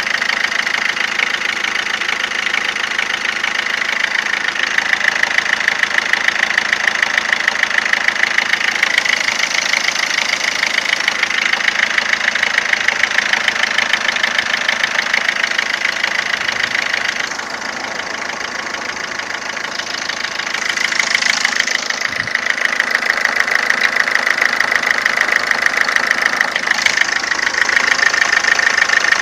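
Ford Fiesta 1.4 TDCi four-cylinder turbodiesel engine running steadily with a fast, even ticking and a strong high-pitched whine, the abnormal noise its owner is recording; it quietens for a few seconds past the middle, then comes back.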